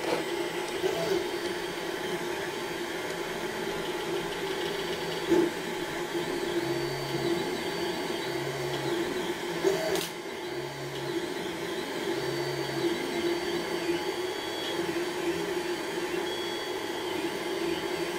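3D printer running: a steady motor and fan hum, with four short low stepper-motor tones from the middle on and one sharp click about ten seconds in.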